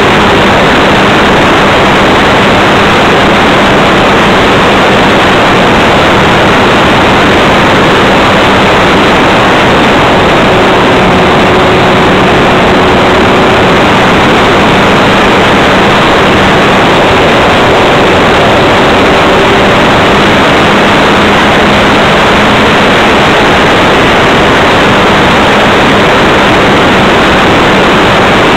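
Wind rush and motor-and-propeller drone picked up by a small camera riding on an E-flite Leader RC model plane in flight. It is a loud, even hiss with a faint steady hum under it that shifts slightly in pitch now and then.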